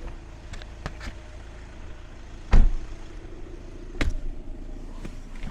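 Cabin of a moving Volkswagen Tiguan: steady road and engine rumble, with scattered sharp ticks and knocks from the interior trim. These are the rattles the owner is complaining of. One louder knock comes about two and a half seconds in, and another about four seconds in.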